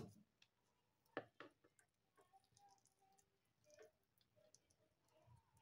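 Near silence, with a few faint clicks about a second in as hands press a piece of soya chaap and work its wooden stick loose.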